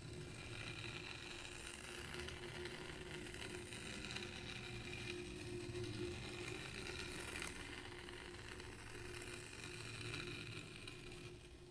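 Wooden stick scraping through fine sand as it is swept in arcs around a marble pivot disc: a steady scraping that swells and eases slightly.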